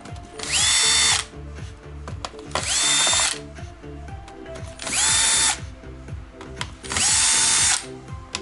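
Small electric screwdriver run in four short bursts about two seconds apart, its motor whine rising quickly and then holding steady, backing screws out during laptop disassembly.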